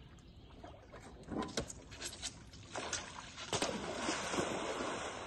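Water splashing as a pump-foil board is launched off a dock and slaps onto the water. A few separate slaps and splashes come in the first half, then a continuous rush of splashing spray from about three and a half seconds in.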